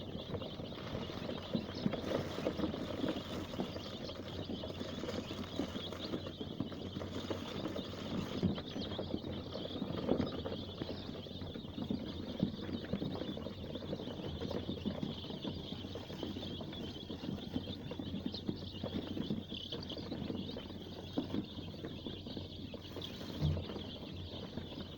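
A brood of young layer chicks peeping continuously as they move about the brooder, with many small scuffs and taps mixed in.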